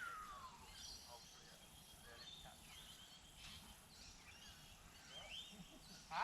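Faint outdoor birdsong: scattered chirps and whistled calls, one gliding down in pitch at the start, with a brief sharp sound near the end.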